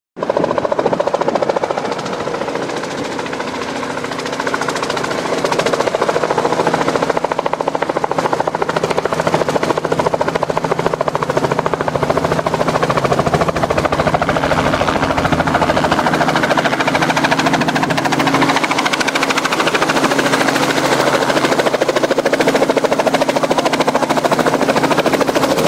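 Light two-bladed helicopter running, its rotor blades beating rapidly and steadily over the drone of its engine.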